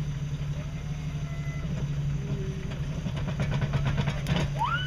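Jeep Wrangler YJ engine idling steadily as the Jeep creeps over a sandy ledge on its off-road tyres, with a run of light crackling near the end.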